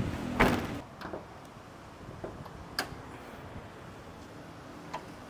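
A car boot lid is slammed shut with one sharp knock about half a second in. A few faint clicks and knocks follow.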